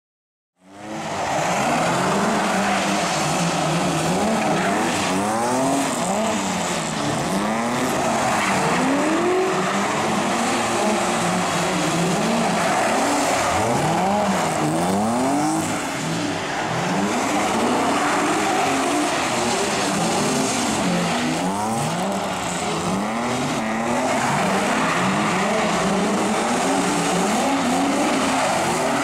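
BMW 3 Series drift cars sliding: several engines revving up and dropping back again and again, overlapping, with tyres squealing. The sound cuts in suddenly just under a second in.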